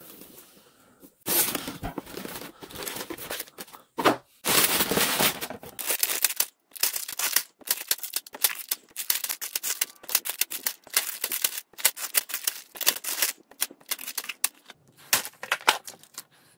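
Plastic parts bags full of small building bricks being handled and set down on a wooden table: the plastic crinkles and the pieces rattle inside the bags in irregular bursts, starting about a second in.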